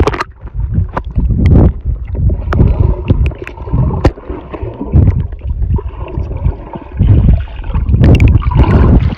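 Underwater sound through a phone microphone held under the water of a swimming pool: muffled surging rumbles of moving water, with a few sharp clicks. It begins suddenly as the phone goes under.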